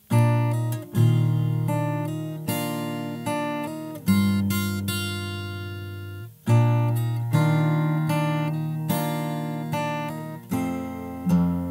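Steel-string acoustic guitar played fingerstyle: plucked bass notes and chords with hammer-ons. Each phrase starts with a sharp attack and then rings and fades, with a short gap just after six seconds.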